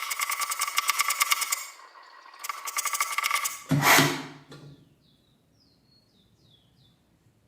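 Knife blade drawn through the round sharpening stones of a manual knife sharpener, making a fast rattling rasp in two strokes, the second ending about three and a half seconds in. A single loud knock follows as something is set down, then it falls nearly quiet.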